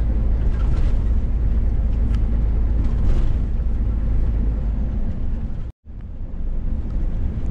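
Scania S500 truck driving along at speed, heard inside the cab as a steady low rumble of engine and road noise. The sound cuts out for a moment just before six seconds in, then resumes.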